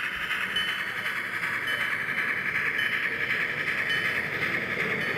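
HO-scale model train running on its track as it enters a tunnel: a steady rushing hiss with a faint tick about once a second.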